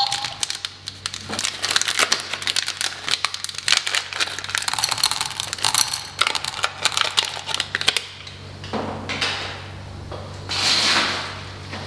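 Small plastic M&M's candy wrappers crinkling and tearing as they are handled and opened, with dense rapid clicks and crackles for about the first eight seconds. After that it turns to a few softer swells of rustling, the biggest near the end.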